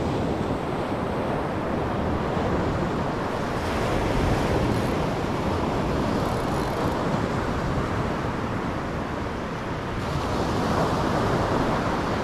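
Surf breaking on a sandy beach, a steady wash that swells louder about four seconds in and again near the end, with wind buffeting the microphone.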